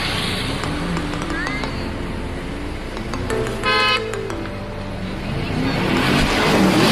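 Road traffic noise with a car horn sounding once for about half a second, roughly halfway through; a vehicle grows louder near the end.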